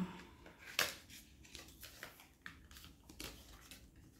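A few light clicks and taps of small objects being handled, the sharpest about a second in.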